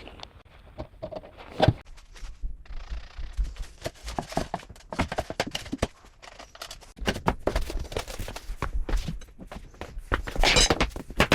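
Irregular knocks, taps and clicks from handling and fitting vinyl floor planks, with a louder run of quick scraping strokes near the end.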